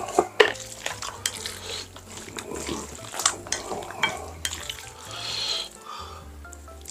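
Eating utensils clinking and scraping against a dish in scattered sharp clicks, over background music.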